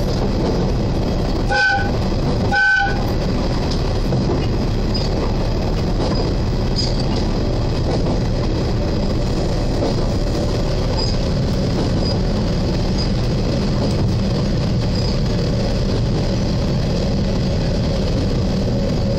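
Diesel railcar running along the line, its engine and running noise a steady drone picked up as heavy vibration through the front window and distorted. Two short horn toots sound close together about two and three seconds in.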